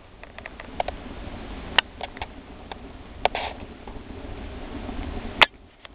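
Swedish torch, a log burning from inside its top, crackling with scattered sharp pops over a low steady rush as the fire catches and starts to draw; the loudest pop comes near the end.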